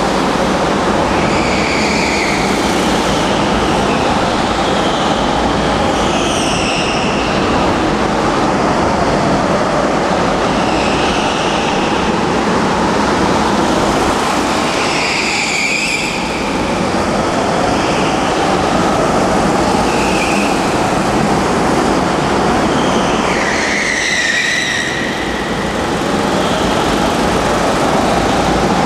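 Several go-karts running on an indoor track, their engines making a steady dense drone. High-pitched squeals of tyres sliding through the turns cut in several times, the strongest about a quarter and five-sixths of the way through.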